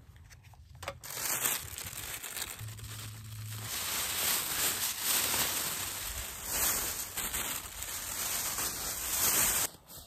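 Clear plastic garbage bag crinkling and rustling as rubbish is stuffed in and the bag is handled, starting about a second in and cutting off abruptly near the end.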